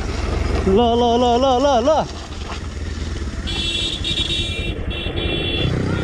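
Bajaj Pulsar NS200 single-cylinder motorcycle running with a steady low rumble, heard from the rider's position, with a person's long, wavering yell about a second in.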